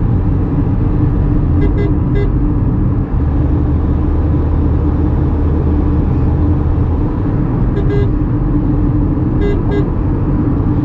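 Steady drone of road and engine noise inside the cabin of a Tata Punch at highway speed, with short car-horn toots three times: a pair, then a single one, then another pair.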